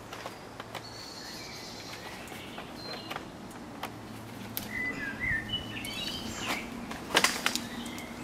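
Wild birds chirping and whistling in the tree canopy, with a few sharp clacks about seven seconds in as the portaledge frame is worked into place.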